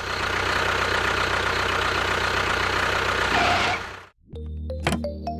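An engine or motor running steadily for nearly four seconds, fading out and cutting off; about a second later, music begins.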